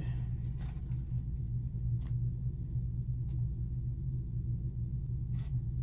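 Steady low background hum, with a few faint, short clicks scattered through it.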